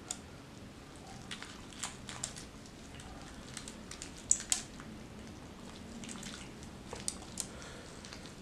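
Crispy skin of smashed fried chicken (ayam geprek) being peeled and torn off by gloved hands: scattered soft crackles and wet squishes, the loudest pair about four and a half seconds in.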